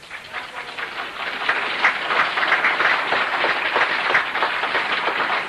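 Audience applauding, many hands clapping, swelling over the first second or so and then holding steady.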